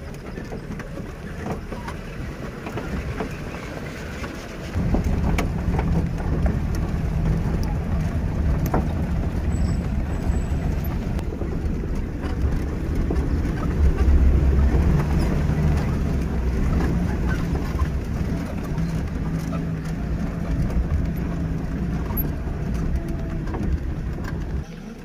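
Safari jeep driving along a dirt forest track: steady engine and road rumble, which gets louder about five seconds in.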